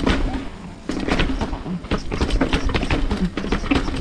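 Hardtail mountain bike clattering down concrete stairs: a fast, uneven run of knocks and rattles as the tyres strike each step edge and the frame and chain shake, with a brief lull about half a second in.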